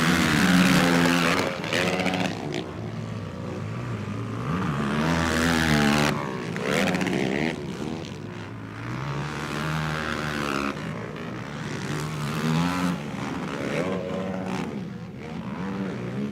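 Racing quad bikes passing on a motocross track, their engines revving up and falling back again and again through gear changes. The passes are loudest in the first second and again around six seconds in.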